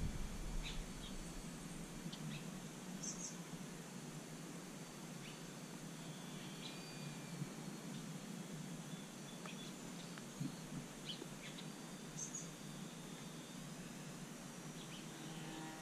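Outdoor background with scattered short, high bird chirps over a faint steady hiss.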